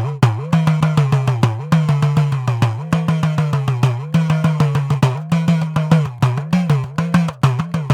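Idakka, the Kerala hourglass drum, played in a rapid, even stream of strokes. The drum's pitch bends up and down between strokes as the tension on its lacing is squeezed and released.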